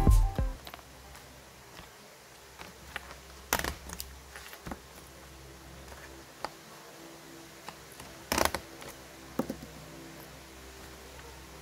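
Loose-leaf paper being snapped onto pink plastic binder rings, with light paper rustling and a handful of sharp plastic clicks spread over several seconds. The loudest clicks come as a quick cluster a little past the middle.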